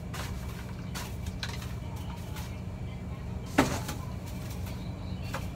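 Broom sweeping a floor in short scratchy strokes, with one sharp knock about three and a half seconds in, over a steady low hum.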